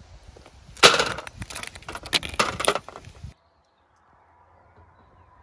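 Ping pong balls clattering and clicking as they are tipped from a clear plastic pack into an aluminium foil tray, with the plastic pack crackling. The clatter starts sharply about a second in and cuts off suddenly after about three seconds, leaving only a faint low hum.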